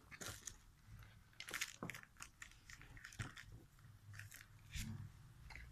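Faint, scattered clicks and light knocks of hand handling: a steel impact socket is pulled out of its foam case while the air impact wrench is held.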